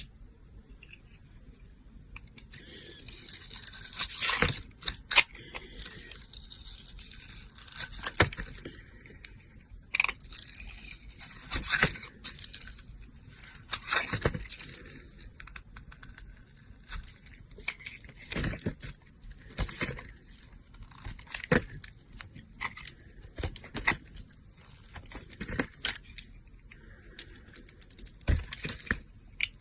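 A knife cutting and scraping dry soap: repeated crisp scraping strokes with sharp crunchy snaps, a louder stroke every second or two.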